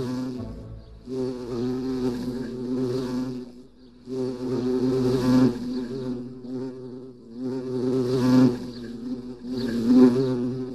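A bee buzzing, swelling and fading in about four passes, as if flying close by and away again, with a brief lull a little under four seconds in.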